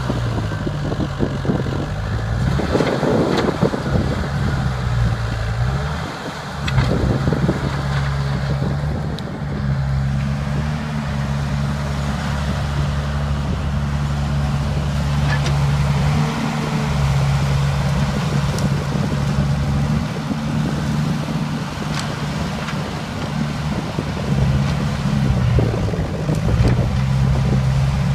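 Crawler track loader's diesel engine working steadily, its pitch rising and falling several times as it is throttled up and down under load, with a few sharp knocks from the machine.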